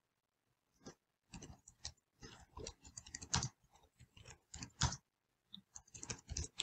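Typing on a computer keyboard: an irregular run of key clicks, starting about a second in, with a short pause before the last few keystrokes.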